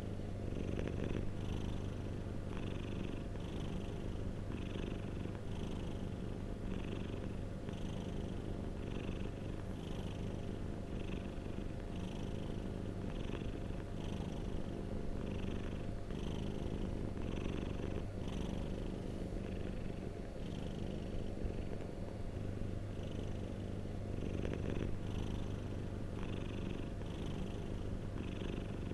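Domestic cat purring steadily, close to the microphone, the purr pulsing in an even rhythm with each breath in and out.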